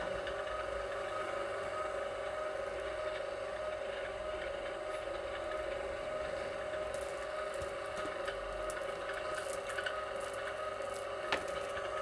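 Vevor electric wire stripping machine running with a steady motor hum. Light crackling and ticking join in the second half, with one sharp click near the end.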